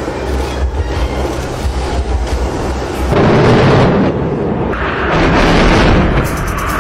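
Military jets roaring overhead as they fire rockets: a continuous deep rumble, with two loud rushing surges about three and five seconds in.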